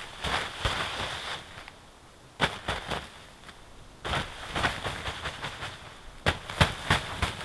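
Snow being knocked off a tent's fly: quick flurries of slaps and thumps on the tent fabric, coming four times, each with the hiss of snow sliding off and falling.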